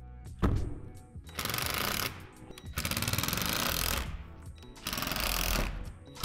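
A cordless power driver running in three bursts of about a second each, driving screws into shed wall panels, over background music. A thump comes just before the first burst.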